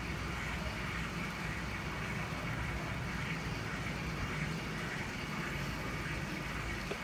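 Steady background noise: a low rumble under a faint hiss, with no distinct knocks or clicks.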